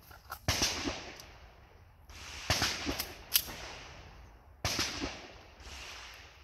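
Several gunshots from elsewhere on the range, sharp cracks with a short echo tail, coming in small irregular groups: a pair near the start, three or four about halfway, and two more near the end.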